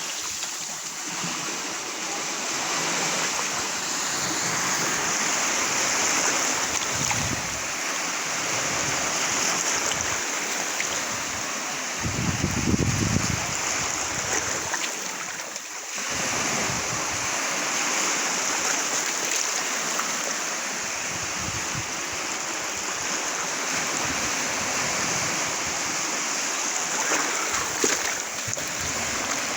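Ocean waves splashing and washing in a continuous rushing that swells and ebbs, with a deeper rumble about twelve seconds in.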